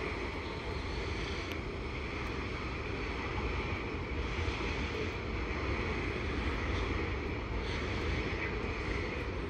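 Steady outdoor noise: a low rumble and an even hiss, with wind buffeting the microphone.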